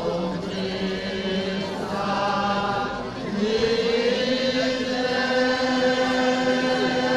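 A small group of men sings a traditional Sicilian Holy Week lament (lamentanza) unaccompanied, in several voice parts. Long notes are held over a steady lower voice. One phrase ends just before three seconds in and a new one starts a moment later.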